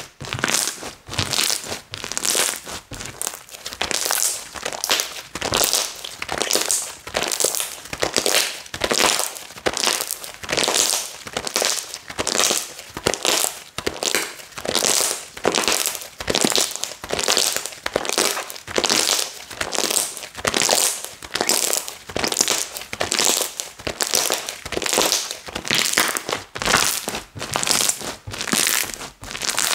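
Long-neglected slime being squished and pressed by hand, crackling and crinkling with each press in a steady rhythm of a little over one press a second.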